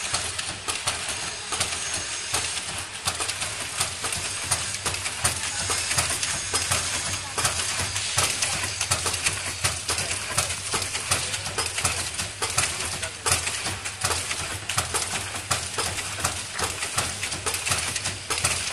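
AmulyaPac SHS-8000 twin-head milk pouch packing machine running: a fast, continuous clatter of clicks and knocks over a steady hiss.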